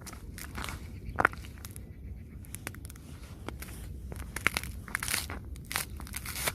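Tapping and scratching on crusted, icy snow: irregular crunchy clicks and short scrapes, with one sharper tap about a second in and a quicker run of taps near the end.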